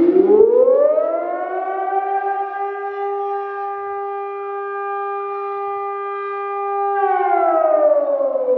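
Civil defence warning siren sounding a test signal: its pitch rises over about two seconds, holds a steady multi-tone note for about five seconds, then starts to fall near the end.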